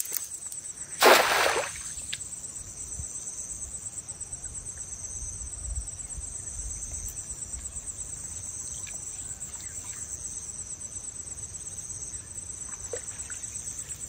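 Insects chirring steadily in a high, pulsing drone; about a second in, one short, loud splash, as a thrown cast net lands in the river.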